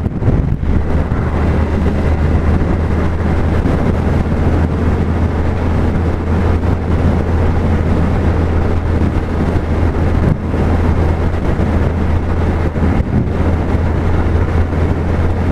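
Suzuki Hayabusa's inline-four engine running steadily while cruising at a constant speed, a low even drone under loud wind rush on the microphone.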